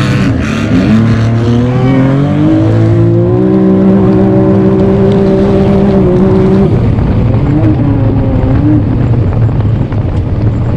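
Off-road vehicle engine under hard acceleration: the revs climb over the first few seconds, hold high and steady, then drop sharply about two-thirds of the way through as the throttle is let off. Wind rushes over the microphone.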